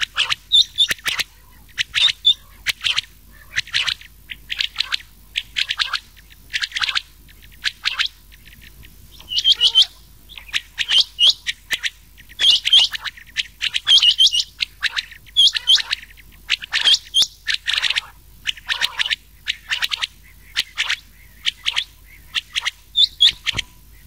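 Rain quail and common quail calls mixed: short clusters of sharp, high notes repeating about once or twice a second without a break.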